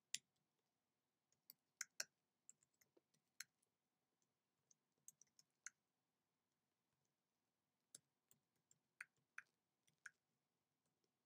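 Typing on a computer keyboard: faint, irregular keystroke clicks in short bursts, with pauses of a second or two between them.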